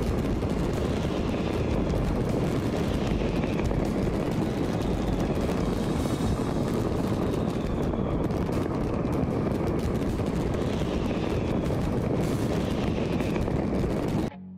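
Massed fireworks and firecrackers going off all across a city at once: a continuous din of cracks and bangs. It cuts off suddenly near the end, giving way to guitar music.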